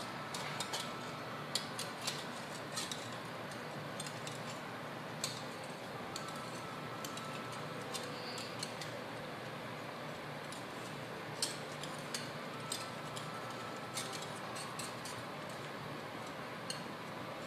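A spoon clinking and tapping irregularly against a stainless steel pot while molokhia greens are stirred, over a steady hiss.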